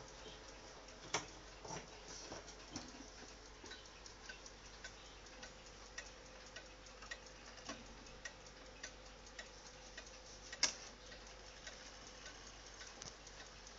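Junghans wall clock movement ticking steadily, a little under two ticks a second. A few louder clicks and knocks come as the minute hand is turned by hand, the loudest about eleven seconds in.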